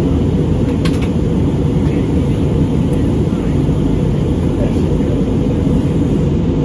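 Cabin noise inside an Airbus A320neo climbing after takeoff: a steady, deep roar of the jet engines and rushing air. There is a single sharp click about a second in.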